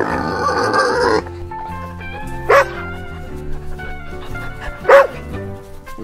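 A pig squealing for about the first second, then two single, short dog barks about two and a half seconds apart, the second one louder, over background music with a steady beat.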